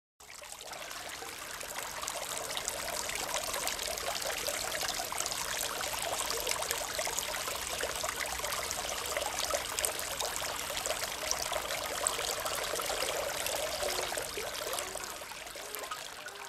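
Water from a tiered terracotta fountain trickling and splashing steadily down over its saucers into the basin. The sound fades in just after the start and fades out at the end.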